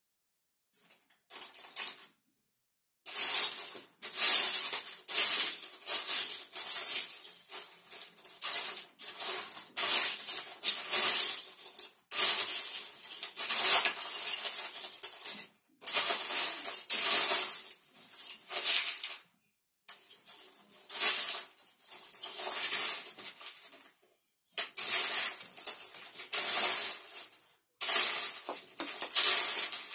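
Loose plastic Lego bricks clattering and clicking as hands rummage through a pile of pieces, searching for one. It comes in runs of a few seconds with short pauses, starting about three seconds in.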